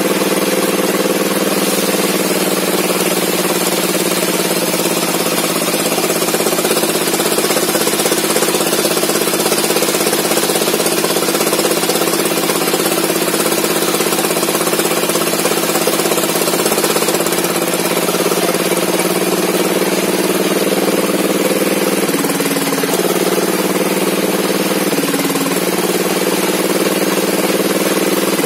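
Small engine of a log saw running steadily at a constant speed, its pitch dipping briefly three times near the end.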